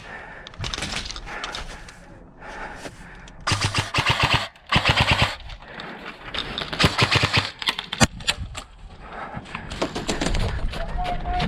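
Airsoft guns firing rapid full-auto bursts, each a fast, even string of sharp snaps, the loudest bursts a few seconds in and again past the middle, with a single sharp crack shortly after.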